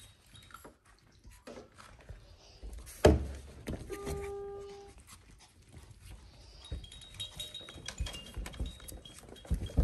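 Maltese puppies playing on a puppy pad: panting and scuffling with small taps and clicks, and one loud knock about three seconds in.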